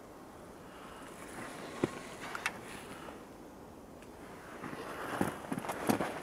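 Footsteps in snow, a couple of sharp clicks about two seconds in, then irregular steps getting louder from about four and a half seconds in.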